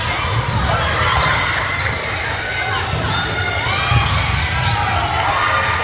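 Basketball game in a gym: a ball bouncing on the court and sneakers squeaking in short sliding chirps, with voices of players and crowd underneath.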